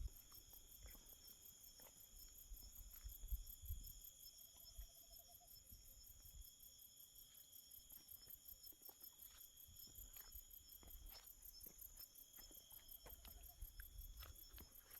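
Faint chorus of crickets or similar night insects: steady high-pitched chirring with a fast, even pulse. Faint scattered ticks throughout, and two brief low trills, one about four seconds in and one near the end.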